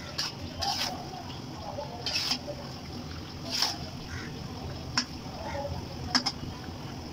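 A spatula stirring chicken pieces in thick bhuna sauce in a black karai (wok), scraping and knocking against the pan several times, the sharpest clinks about five and six seconds in, with wet sloshing of the curry.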